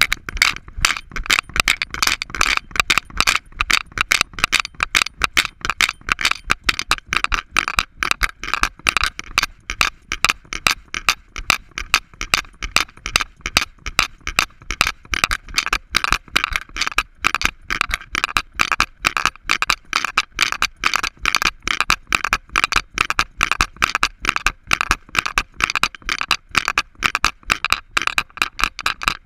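Camera mount and harness on the back of a trotting Alaskan Malamute rattling with each stride: a quick, even clatter about four times a second.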